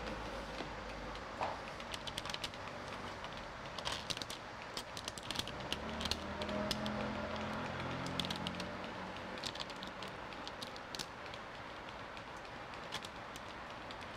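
Window tint film crackling in scattered clicks as it is handled and pressed onto a door's glass, over steady room noise.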